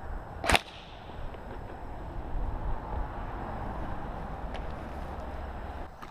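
A single sharp crack about half a second in, the loudest sound, then the footsteps and gear rustle of a player walking over paving stones and grass, with a few light clicks.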